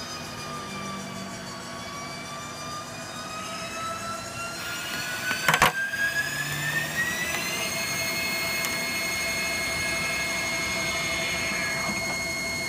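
Haas TL-1 CNC lathe spindle whining as it turns brass bar stock. The whine climbs in pitch for a few seconds as the spindle speeds up, then holds steady, with a hiss over the middle part and one sharp click about five and a half seconds in.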